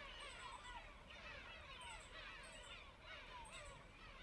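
Faint chorus of many birds calling at once: a steady stream of short, falling calls overlapping one another, with brief high chirps now and then.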